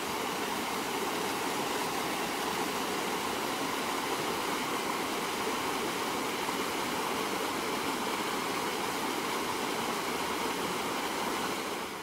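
A small waterfall and a shallow forest stream rushing and splashing over mossy rocks in a steady, even rush, fading near the end.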